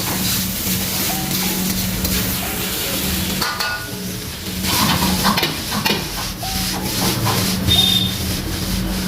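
Food sizzling as it is stir-fried in a hot pan, with a metal spatula scraping and clicking against the pan throughout. A steady low hum runs underneath.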